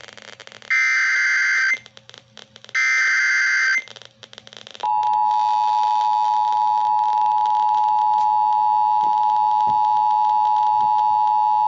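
Weather radio emergency alert signal: two roughly one-second bursts of screeching digital header data (SAME coding), then about five seconds in a loud steady single-pitch alert tone starts and holds. This marks the start of a new warning message.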